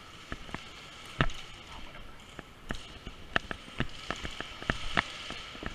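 Airsoft guns firing single shots, about a dozen sharp cracks at irregular intervals, the loudest about a second, three and a half and five seconds in.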